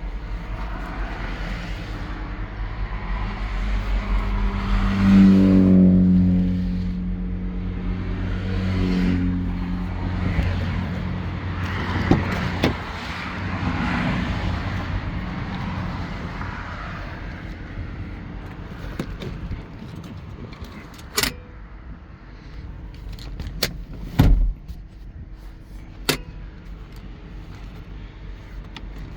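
2015 Infiniti QX60's engine running, revving up about five seconds in and then settling back to a steady run. A few sharp clicks and a knock come near the end.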